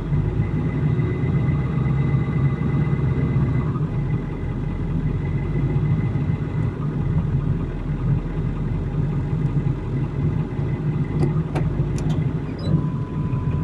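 A vehicle engine running steadily at low revs, with a few faint clicks near the end.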